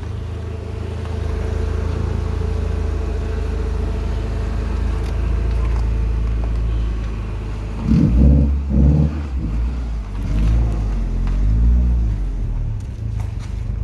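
Turbocharged four-cylinder engine of a Rover 620 running at a steady low drone, then revved from about eight seconds in: two sharp blips, then a few more revs with the pitch rising and falling.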